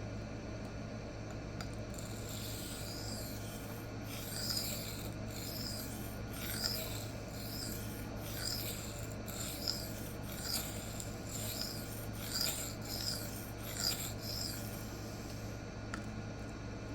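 A steel knife blade (Böhler K110) stroked back and forth on the 800-grit side of a Rikon CBN sharpening plate, a rasping scrape on each pass, somewhat faster than one stroke a second. The strokes start about two seconds in and stop a couple of seconds before the end.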